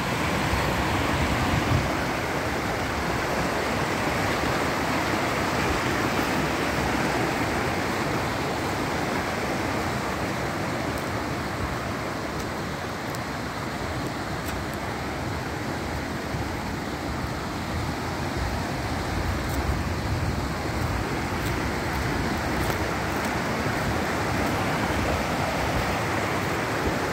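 Small mountain stream rushing and splashing over rocks, a steady noise that grows a little softer in the middle, then comes back.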